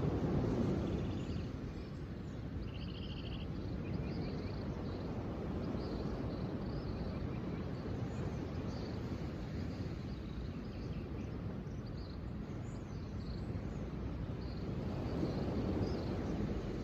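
Outdoor nature ambience: a steady low wash of noise that swells near the start and again near the end, with faint, scattered high bird chirps and a short buzzy trill about three seconds in.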